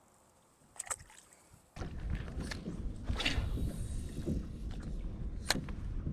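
A fishing boat on the water: a couple of light clicks, then about two seconds in a steady low rumbling noise of the boat and water starts abruptly and runs on, with a few more sharp clicks.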